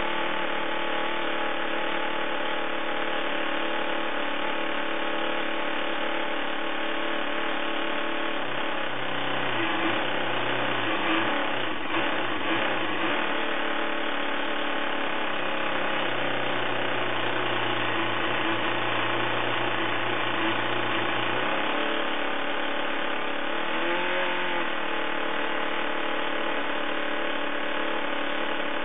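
Homemade 10 cc single-cylinder four-stroke glow-plug model engine, based on the JAWA ESO speedway engine, running steadily on its first run. Its speed wavers about ten seconds in and briefly rises and falls again about 24 seconds in.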